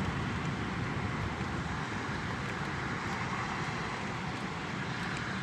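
Steady hiss of rain falling, with a tornado warning siren faint in the distance.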